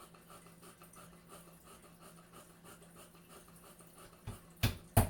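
A faint steady hum, then about four seconds in a run of sharp hammer knocks on wood begins, roughly three strikes a second, the last ones loud.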